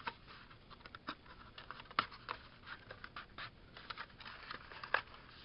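Cardstock being handled and slid together by hand: light rustling and scraping of paper with scattered small clicks, and two sharper snaps, about two seconds in and just before the end.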